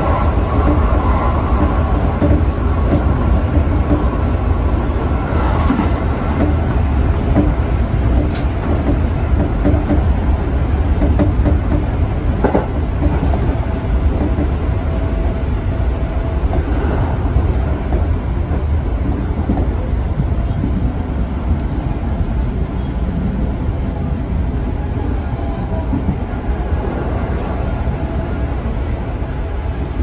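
Electric commuter train running along the line, heard from inside the driver's cab: a steady low rumble of wheels and running gear. It gets a little quieter near the end as the train slows for a station.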